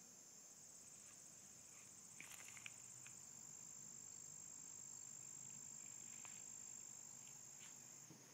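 Faint, steady high-pitched trilling of insects, with a few soft rustles a couple of seconds in.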